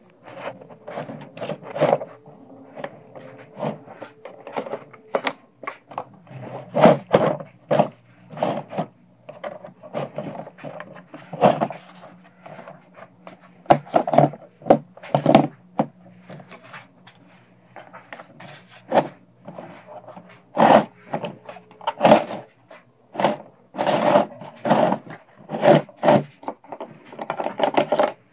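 Metal hand tools clattering and scraping in the trays of a plastic tool case as it is rummaged through: an irregular run of knocks and clicks, with scraping and rubbing between them.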